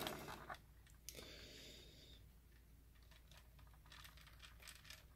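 Near silence with a few faint clicks and taps of a plastic scale model car being handled and turned over in the hands, one about a second in and a scatter of small ticks near the end.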